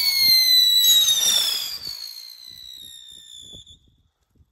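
Weco Sputnik ground spinner firework burning on pavement with a shrill whistle that slowly falls in pitch over a hissing burn. A second falling whistle starts about a second in, and both die away shortly before the end.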